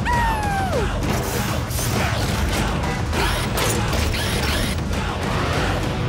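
Cartoon mechanical sound effects for a rescue vehicle and its gadget claw. A falling whistle-like glide comes in the first second, then a run of clicks, clanks and whirs over background music.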